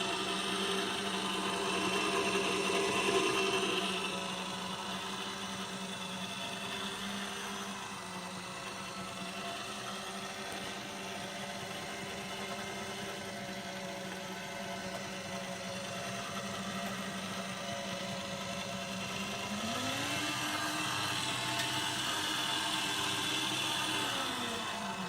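Small electric motor driving a model hopper feeder's conveyor belt, running with a steady whir. About twenty seconds in the motor speeds up, its pitch rising and holding, then slows back down near the end.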